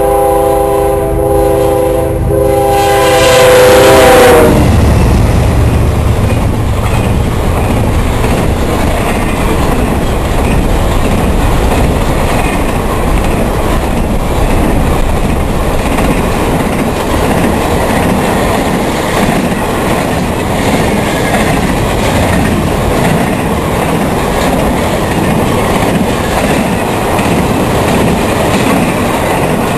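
A CSX freight locomotive's multi-chime air horn sounds a chord that drops in pitch and cuts off about four seconds in as the engine passes. A loaded intermodal train of container and trailer cars then rolls by steadily, its wheels clacking over the rail joints.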